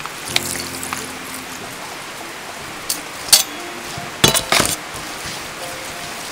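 A metal spatula clinks and scrapes against a stainless steel mixing bowl as sliced pork is turned in its marinade. The sharpest knock comes about three seconds in, followed by a quick cluster of clinks. A steady hiss of rain runs behind.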